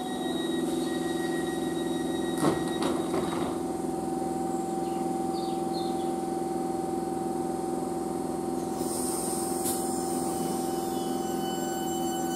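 Southeastern Class 465 Networker electric train standing at the platform, its onboard electrical equipment giving a steady hum with a constant whine. A single clunk comes about two and a half seconds in.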